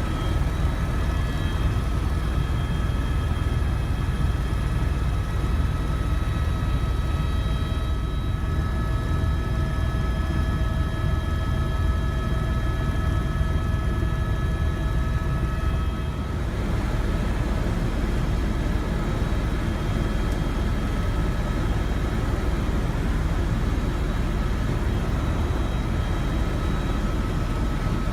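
Helicopter in flight: a loud, steady rumble with several steady whining tones above it, a few of which drop away about 16 seconds in.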